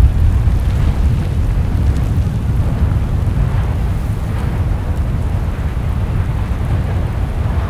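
Deep, continuous rumble of an erupting volcanic vent, with a few faint rougher surges now and then.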